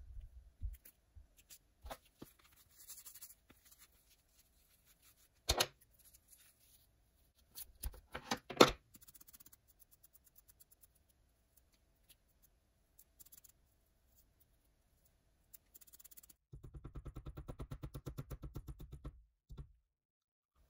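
Fly-tying bench handling noises: scattered small clicks and light scrapes, with a couple of sharp knocks in the middle. Near the end comes a fast, even run of taps lasting about three seconds: a hair stacker being tapped on the bench to even the tips of deer belly hair.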